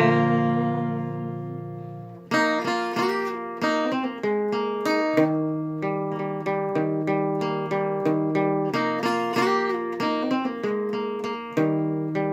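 Acoustic guitar: a chord left ringing and fading for about two seconds, then a rhythmic picked riff of single notes and chords, with a few notes bent or slid in pitch.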